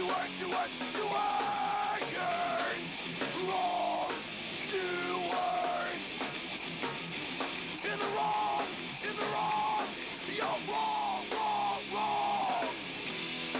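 Heavy rock band playing: drum kit and a lead line of held notes that bend up and down over a dense, distorted backing.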